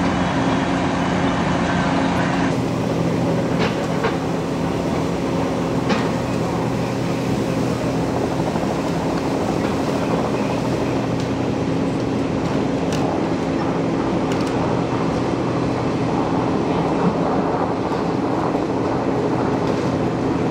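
Fire apparatus engine running steadily, a deep even drone. A few short knocks and clatters come over it.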